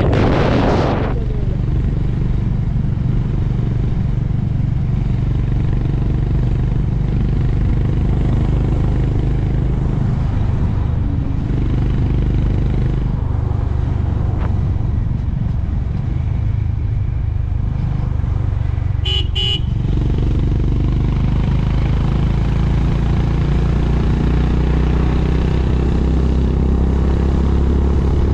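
Honda H'ness CB350's single-cylinder engine running steadily at road speed, heard from the rider's seat. A horn beeps briefly about two-thirds of the way through.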